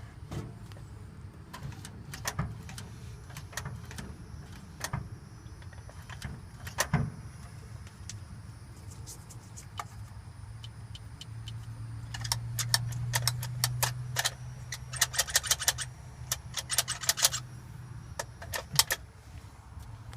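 1952 Ford's engine being cranked over by the starter without catching, a steady low drone that grows stronger about halfway through; the owner believes the engine is flooded after sitting for months. Irregular sharp clicks run through it and come thick and fast in the second half.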